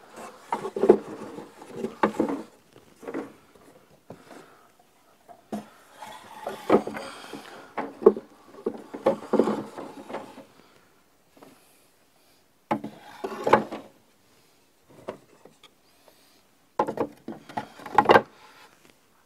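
Wooden Langstroth hive frames being set into a wooden brood box and shuffled into place: irregular wooden knocks, clatter and scraping, in several bursts with short pauses between them.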